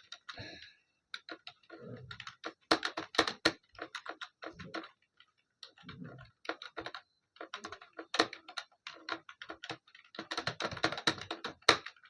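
Fast typing on a computer keyboard: rapid, irregular keystroke clicks in uneven bursts, with a short pause about five seconds in.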